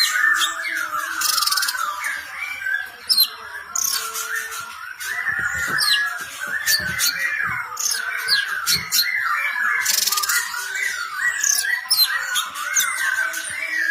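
Cucak cungkok songbird singing a fast, continuous run of chirps and warbles that rise and fall in pitch, with sharper high notes and clicks scattered through it.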